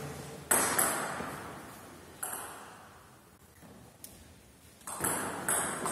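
Table tennis ball clicking off paddles and the table, each click ringing on in a reverberant hall: two clicks near the start, one about two seconds in, then a new rally starting near the end with clicks about half a second apart.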